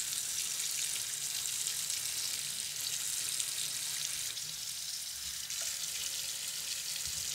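Water running steadily from a kitchen tap into a stainless-steel sink: an even hiss with no distinct knocks.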